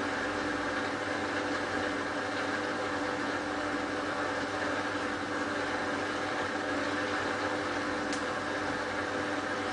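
Hotpoint Ultima WT960 washing machine's motor turning the drum at a steady speed during the spin after a pre-rinse: a constant hum with a steady whine, with one faint tick about eight seconds in. The load is badly unbalanced, which keeps the machine from holding its spin speed.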